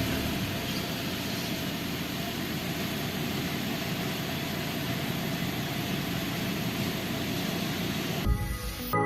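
Steady rushing noise, vehicle-like, that changes abruptly near the end.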